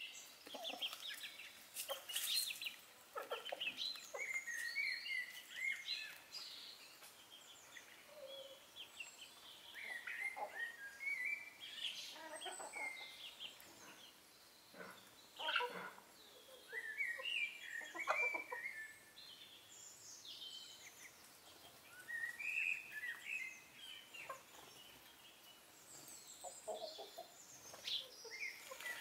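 Domestic chickens clucking among scattered chirps of small birds: many short calls coming and going, with a few sharper sounds in between.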